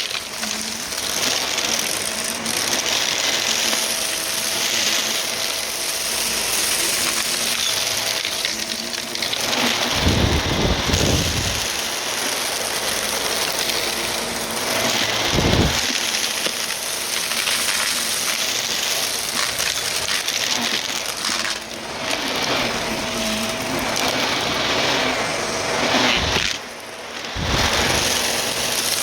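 Vacuum cleaner running with its brushroll spinning, a steady motor hum under a loud rushing noise. A few deep thumps come about ten and fifteen seconds in, and the sound dips briefly near the end.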